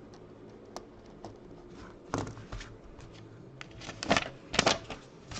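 Handling noise: scattered clicks and a few short rustles, the loudest two about four and four and a half seconds in.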